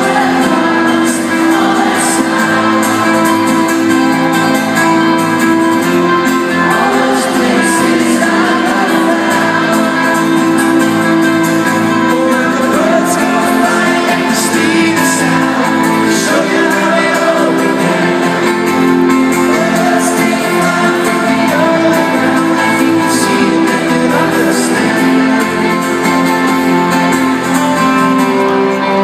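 A live pop-rock band plays a song with guitars and a male lead singer, loud and steady, recorded from inside an arena crowd.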